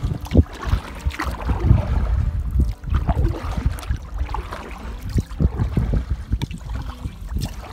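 Canoe being paddled up a shallow river swift: paddle strokes splashing in the water over the rush of the current, with an uneven rumble of wind on the microphone.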